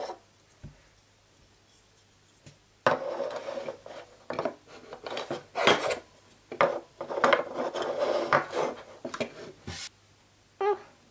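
Small hard plastic toy pieces being handled and set down on a tabletop: a run of light knocks and rattles starting about three seconds in, with a single click at the start and another near the end.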